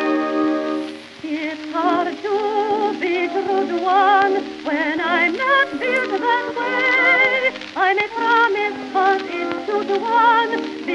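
Background music: a held organ-like chord fades out in the first second, then a slow melody is sung with heavy vibrato over a soft accompaniment.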